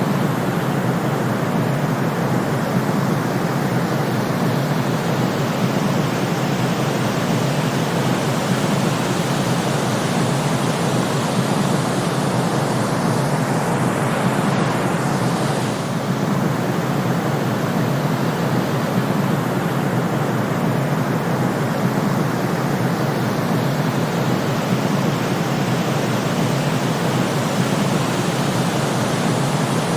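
Steady, unbroken white noise from a sleep timer's countdown track, heavier in the low range, with no rhythm or change.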